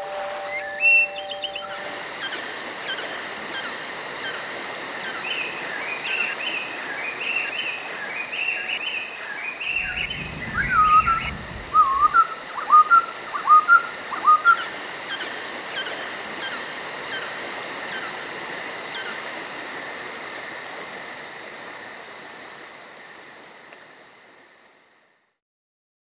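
Evening insect chorus, a steady shrill trilling, with a bird calling over it in repeated short rising and falling notes, loudest a little past the middle. The whole fades out near the end.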